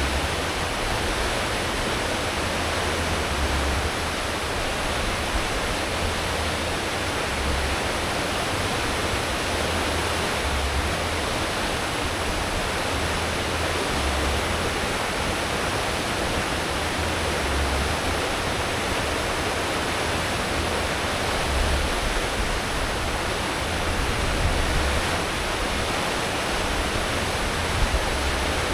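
Steady rushing churn of a cruise ship's wake and propeller wash at full speed. Underneath is a deep engine rumble that swells every few seconds.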